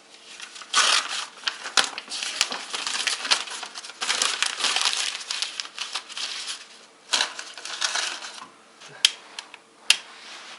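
Paper being crumpled and rustled to lay a fire in a fireplace, with a few sharp knocks of kindling pieces near the start and near the end.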